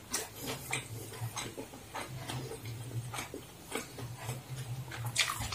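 Close-up eating sounds of fried noodles being chewed and slurped: a run of small irregular wet clicks, with occasional taps of a spoon and fork against a ceramic bowl, over a low steady hum.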